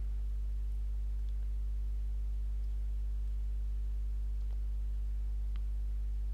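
Steady low electrical mains hum, a constant drone with a buzzy stack of overtones, with a few faint clicks scattered through it.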